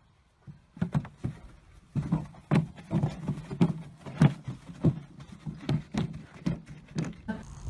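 A horse's hooves clip-clopping on hard ground: irregular knocks, about two to three a second, starting about half a second in after a brief quiet.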